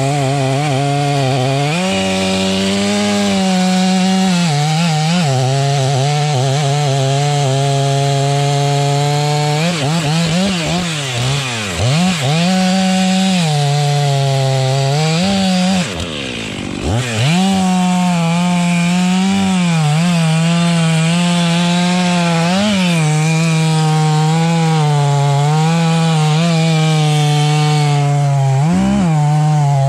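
Two-stroke chainsaw running at high revs while cutting into a tree, its engine note sagging under load and recovering. About ten seconds in, and again around sixteen seconds, the revs drop sharply, then pick back up to full speed.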